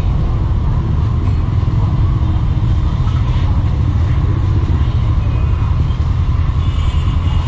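Steady low rumble of street noise from motorbike traffic, with no break.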